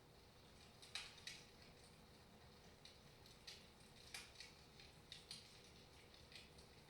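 Wood fire crackling softly in a fireplace: faint irregular pops and snaps over a low hiss, with the sharpest snaps about a second in and again around four seconds.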